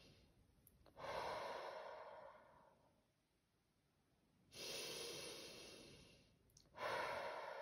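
A woman taking slow, deep belly breaths: three long breath sounds, starting about a second in, at about four and a half seconds, and near the end, each fading away over a second or two.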